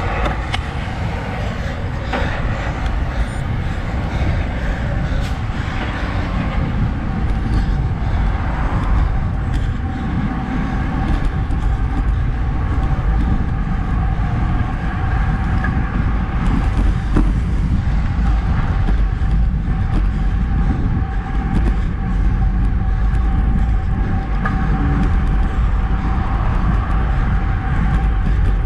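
Wind rushing over a handlebar-mounted action camera's microphone, with tyre and road noise, as a road bike on Roval Rapide CLX64 deep-section carbon wheels rolls along at speed. A thin steady tone runs through it, and a truck passes near the start.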